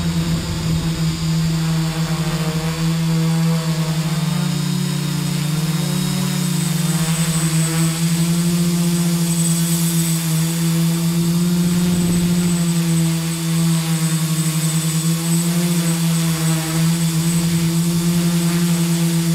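Multicopter's brushless motors (Roxxy 2827-34) spinning Graupner 11x5 propellers, a loud steady hum heard close up from the onboard camera. The pitch wavers briefly a few seconds in as the throttle changes, then settles.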